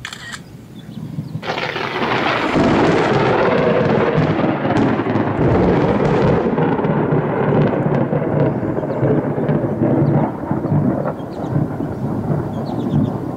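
A thunderclap that begins suddenly about a second and a half in, then rumbles on loudly for about ten seconds, turning duller as its upper crackle dies away.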